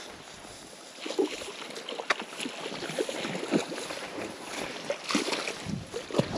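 Footsteps and rustling through tussock grass, with scattered knocks and brushing from handling the camera, starting about a second in.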